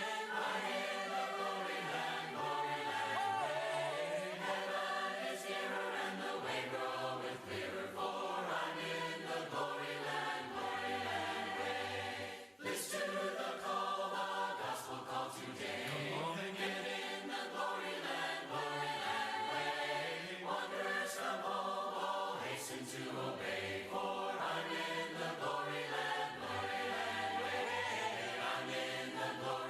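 A church congregation singing a hymn in several parts, unaccompanied, with a brief break about halfway through.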